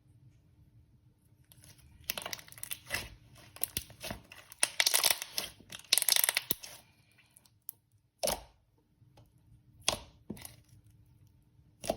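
Thick slime being played with: a few seconds of dense crackling and popping, then several separate sharp pops.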